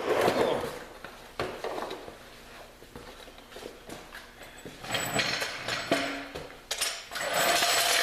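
Scattered metal clanks and knocks as a jack and tools are handled under the Jeep. A steady scraping noise starts near the end.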